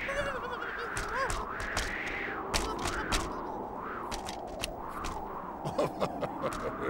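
Cartoon soundtrack: a wavering tone that rises and falls about once a second, with scattered clicks. Near the end, squawking penguin-cartoon voices join in.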